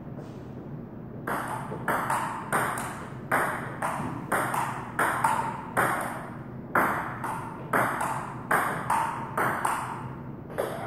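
Table tennis rally: a ping-pong ball clicking off the rubber-faced paddles and the table in quick alternation, about two to three hits a second. The hits start about a second in and keep going for some nine seconds, each with a short echo.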